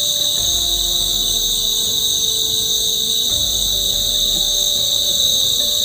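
Night chorus of crickets trilling steadily, several high-pitched calls sounding at once without a break.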